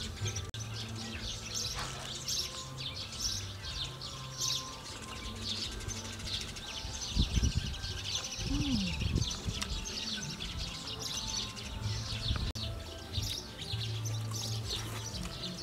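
Many small birds chirping continuously, over background music with steady, held low notes.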